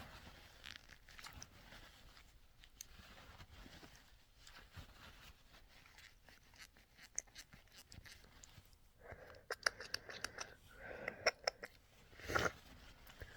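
Quiet sniffling and crinkling of a tissue by a person with a head cold, with a spell of crackly sounds about nine seconds in.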